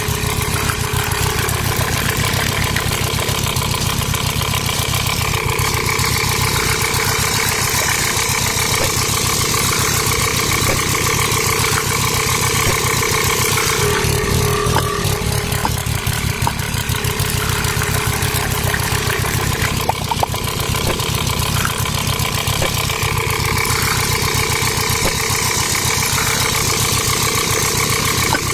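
A small motor running steadily with a constant hum and whine that does not change.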